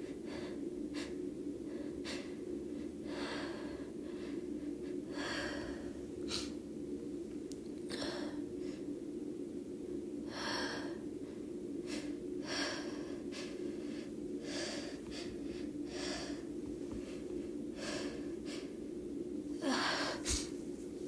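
A woman's induced sneeze buildup: short, hitching in-breaths and sniffs about once a second, with a louder gasp near the end and no sneeze yet. A steady low hum runs underneath.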